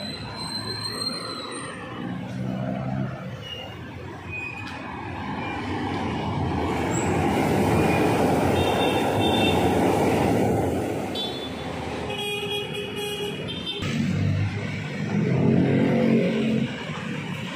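Street traffic heard from a moving bicycle: motor vehicles running and passing close, louder for a few seconds in the middle. A vehicle horn honks once for about a second and a half, about two-thirds of the way through.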